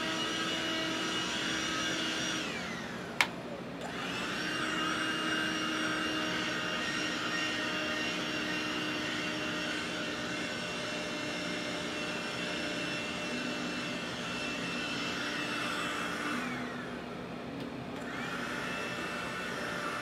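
Handheld vacuum cleaner running over a leather armchair, its motor whine switched off and on: it winds down about two seconds in, a sharp click follows, then it spins up again and runs steadily. Near the end it stops for a second or so and starts up once more.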